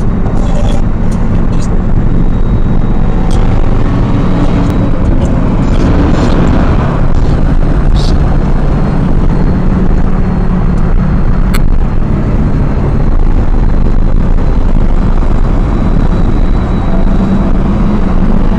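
Car engine drone and tyre noise of freeway driving, heard from inside a moving car; the engine note shifts in pitch a few times, with a few faint clicks.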